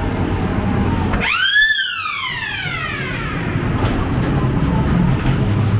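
Ghost train car rumbling along its track, with a loud pitched wail about a second in that rises briefly and then slides down over about two seconds.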